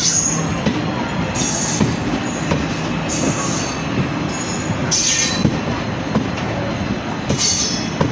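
Passenger train running on the rails with a steady rumble and scattered clicks from the track. The wheels squeal in short high bursts every second or two.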